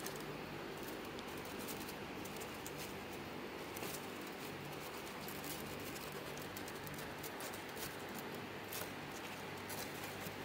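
Hands pressing and flexing a sheet of expanded polystyrene foam along freshly hot-wire-cut letters, giving small irregular crackles and squeaks of foam rubbing on foam, over a steady low background hum.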